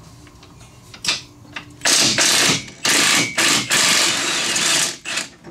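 Impact wrench hammering on an 18 mm trailing-arm bolt in three or four loud rattling bursts, starting about two seconds in, until the bolt breaks loose.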